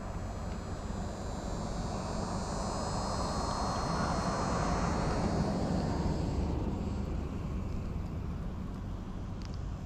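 A distant engine passing by, its rushing noise swelling to a peak about halfway through and then fading. Insects buzz high and steady underneath, dropping away about two-thirds of the way in.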